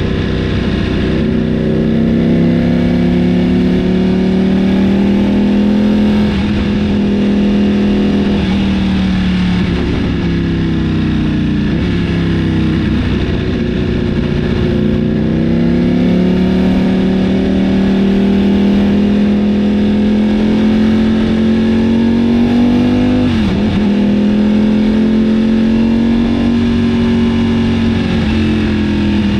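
Ducati Panigale V4's Desmosedici Stradale V4 engine running at moderate revs, its pitch easing down and climbing back several times, with one brief sharp drop and recovery near the end.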